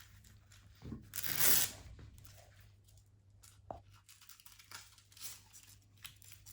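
Hook-and-loop strip on a nylon airsoft belt ripped apart in one short pull about a second in, followed by a few faint clicks and rustles as the belt and its clasp are handled.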